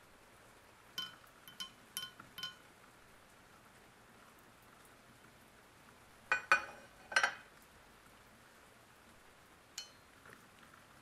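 Small metallic clinks from a steel axe head and tools being handled on metal: four light ringing ticks about a second in, three louder clanks around six to seven seconds in, and a single click near the end.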